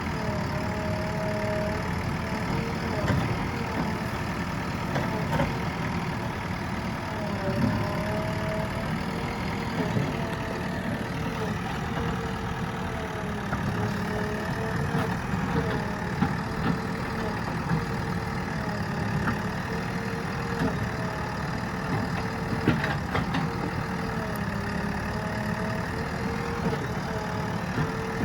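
JCB backhoe loader's diesel engine running steadily, with a pitched whine that wavers slightly up and down and a few faint knocks.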